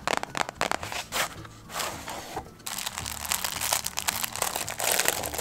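A small paper gift box being handled and opened, with short taps and clicks, then tissue paper rustling and crinkling from a little under three seconds in as the wrapping is pulled open.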